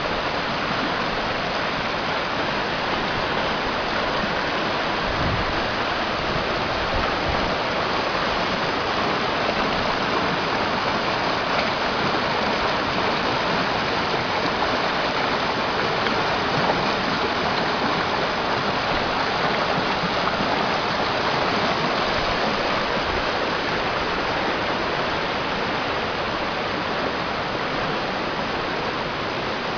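Cascading brook in flood, swollen by tropical-storm rain, its water rushing steadily down the falls.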